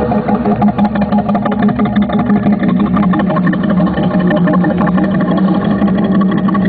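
Live ambient electronic music: a loud, steady low drone with a dense, rapidly pulsing texture over it.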